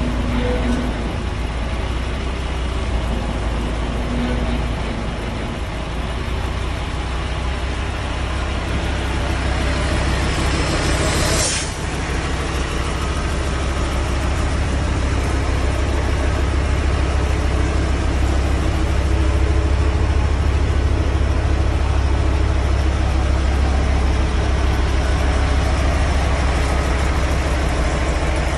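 Isuzu Giga dump truck's 10PE1 V10 diesel engine running at a steady idle with a deep hum, getting somewhat louder in the second half. About eleven seconds in there is a short hiss that cuts off sharply.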